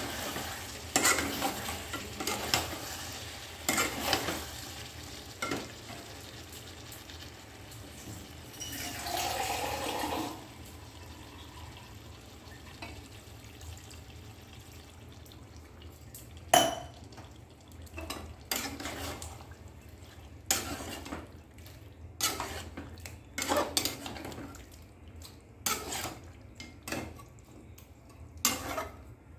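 Metal spatula stirring and scraping chicken curry frying in a metal kadhai, with repeated clattering strokes against the pan over sizzling. Water is poured into the pan about a third of the way in, after which the sizzling fades and the spatula strokes stand out.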